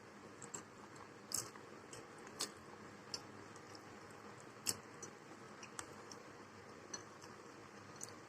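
Faint, irregular soft clicks and smacks of someone eating and chewing close to the microphone, about ten in all, the loudest nearly five seconds in.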